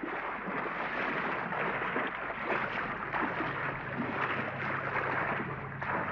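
Sea water rushing and splashing with a steady low engine drone beneath it, the engine growing stronger about two-thirds of the way through: landing craft running in to a beach.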